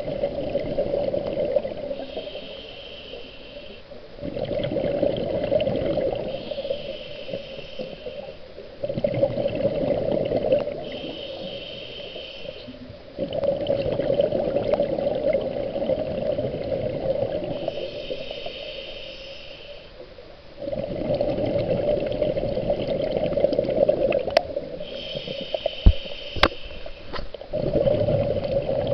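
Scuba diver breathing through a regulator underwater: a short hiss on each inhale, then a long rush of exhaust bubbles on each exhale, repeating about every four to five seconds. A few sharp clicks near the end.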